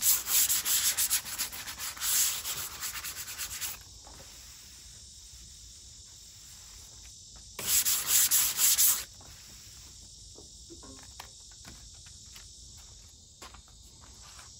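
Hand sanding a painted car fender panel with 80-grit sandpaper, quick back-and-forth scraping strokes scuffing the paint to give paint stripper a tooth. The strokes run for the first few seconds, stop, and come back in one short burst about eight seconds in.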